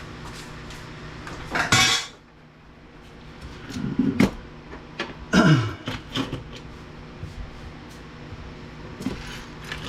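Scrap metal and plastic parts from a dismantled VCR being handled and moved about on a work surface. There is a scraping rush about two seconds in, clattering knocks and scrapes around the middle, and scattered light clicks after that.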